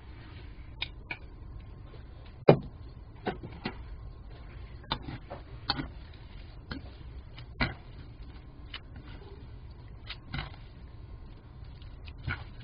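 Wooden chopsticks tapping and scraping against a nonstick wok while tossing glass noodles and vegetables, a dozen or so irregular clicks with one sharper knock about two and a half seconds in, over a steady low hum.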